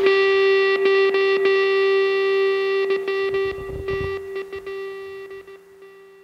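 Background music ending on a long held note that slowly fades out.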